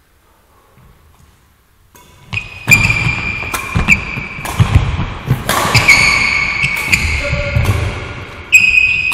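Badminton rally on a sports hall floor: sharp racket hits on the shuttlecock, thudding footsteps and high, drawn-out shoe squeaks, starting a couple of seconds in after a quiet start.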